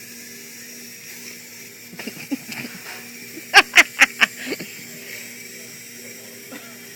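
Clockwork motors of wind-up toy bumper cars whirring steadily as the cars run. About three and a half seconds in comes a quick burst of four loud, short sounds, with a weaker cluster of them a second or so earlier.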